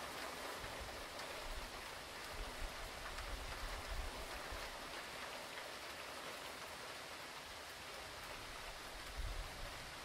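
Steady rain falling, with a few brief low rumbles a few seconds in and again near the end.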